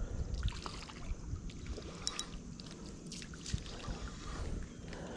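Low rumble of wind on the microphone and handling noise, with a few light clicks, a small cluster about two seconds in, and faint water sounds.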